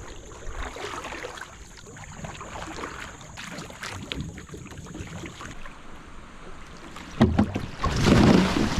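Paddling a stand-up paddleboard: water swishing and dripping off the paddle, with small knocks. Near the end there is a louder, rougher burst of noise.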